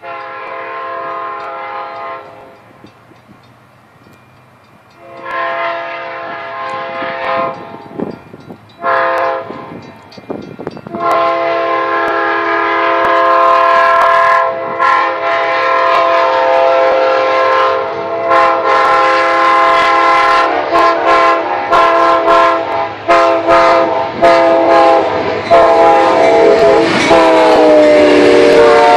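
Locomotive air horn sounding the grade-crossing signal, long, long, short, then a long blast held as the train passes, its chord dropping in pitch near the end. Wheels clatter over the rail joints under the held blast.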